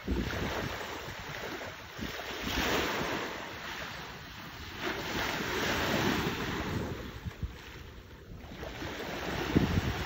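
Sea waves washing in, swelling and fading every few seconds, with wind buffeting the microphone.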